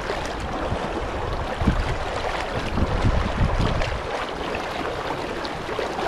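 River water rushing and splashing close by, with wind buffeting the microphone in uneven low gusts.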